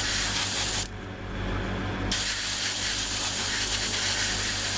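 Airbrush spraying paint in two bursts of hiss: it cuts off about a second in and starts again a second later. A steady low hum runs underneath.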